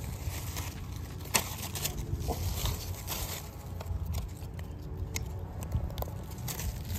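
Dry leaves and wood-chip mulch crackling underfoot as someone shuffles about, with scattered sharp clicks and a steady low rumble.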